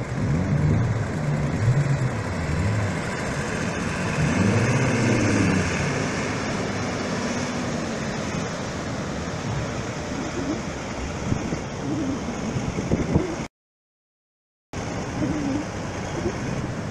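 Engines revving, their pitch rising and falling over the first several seconds, as a tractor in the shallows pushes a fishing boat off the beach and the boat powers out through the breakers. Steady surf and wind noise runs underneath. The sound cuts out completely for about a second near the end.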